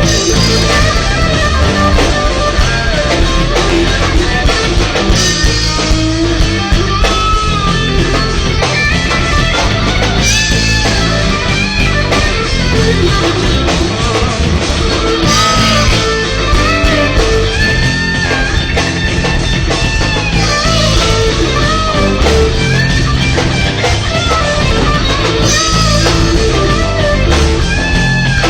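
Live rock band playing an instrumental passage: electric lead guitar with bending notes over drums and bass.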